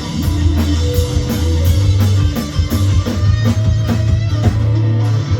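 Live rock band playing: electric guitars over bass and drums, with an even beat of cymbal hits.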